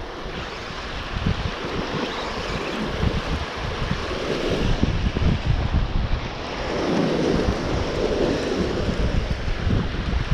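Wind buffeting the microphone over sea surf washing against rocks, the wash swelling twice, about four and seven seconds in.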